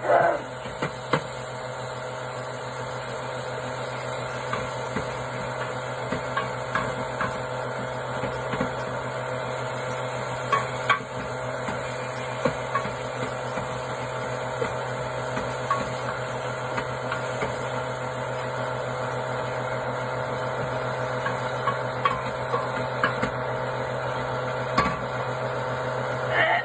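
Kitchen utensils clinking and tapping on cookware and dishes, short scattered knocks over a steady mechanical hum.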